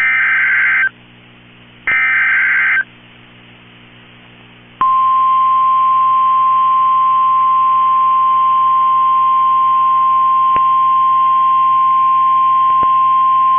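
The last two of three bursts of SAME digital header data from a NOAA Weather Radio alert: a harsh screech of about a second each, a second apart. After a pause of about two seconds comes the single steady 1050 Hz warning alarm tone, held for about nine seconds. Together they mark the start of an emergency alert, here a tornado warning.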